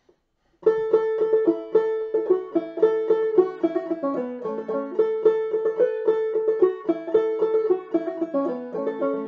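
Open-back five-string banjo played clawhammer style: a solo old-time tune in the key of A, starting about half a second in.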